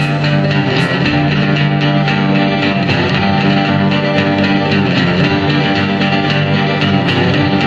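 Background music led by plucked guitar over a steady bass.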